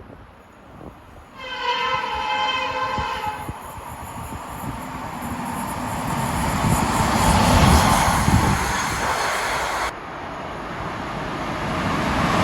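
A train horn sounds one steady chord for about two seconds, then the train's passing noise builds, loudest about eight seconds in. It cuts off suddenly about ten seconds in, and another passing train's noise starts building.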